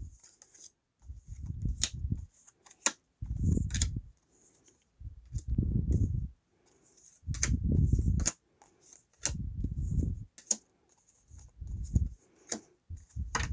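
Tarot cards being dealt one by one onto a wooden tabletop: sharp card clicks and slaps with dull low thumps, coming every second or two.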